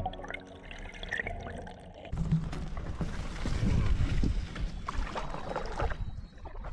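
Background music for about two seconds, then it cuts abruptly to a canoe being paddled, with water splashing and sloshing from the strokes. The water sounds fade about six seconds in, leaving faint scattered knocks.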